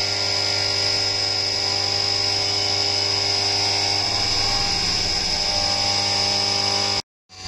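CNC vertical mill's spindle running at high speed with a small end mill cutting a metal engine cover under flood coolant: a steady high whine over a low hum. It stops abruptly near the end.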